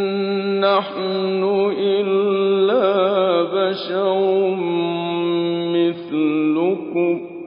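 A man's voice reciting the Quran in a slow, melodic chant, holding long drawn-out notes with slow ornamented turns in pitch. The phrase ends just before the end, leaving an echoing fade.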